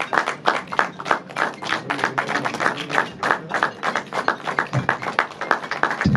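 A group of people clapping, the individual claps distinct and irregular.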